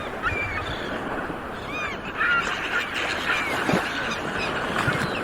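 Sea waves washing steadily, with many short bird calls over them, each rising and falling in pitch.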